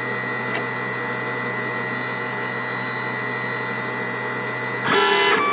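Lulzbot Mini 3D printer running with a steady whir from its cooling fans and a thin, constant high whine. Music with a chiming melody comes in near the end.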